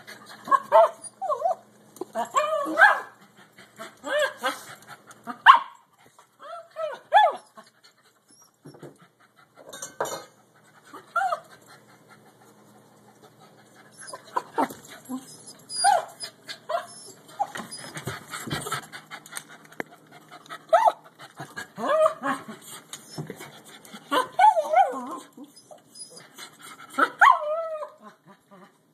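Small dog whining and yipping in short calls that bend up and down in pitch, coming in bursts with a quieter spell a third of the way in, and panting between them.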